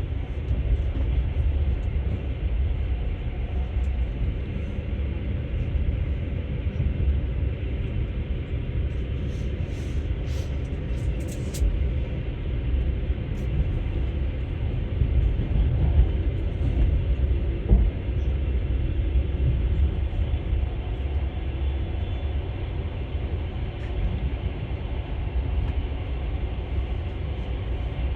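Russian passenger train running along the rails, heard from inside the carriage: a steady low rumble with the knock of the wheels over the rail joints, a couple of sharper knocks a little over halfway through.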